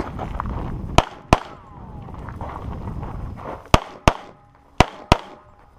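Pistol shots fired in three quick pairs, the two shots of each pair about a third of a second apart, each shot a sharp crack. A low rushing noise runs under the first three seconds or so.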